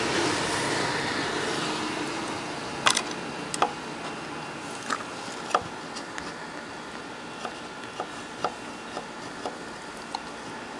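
Scattered light clicks and taps of a test probe and tools handled against the amplifier's wiring and terminals, one sharper click about three seconds in; a hiss fades away over the first few seconds.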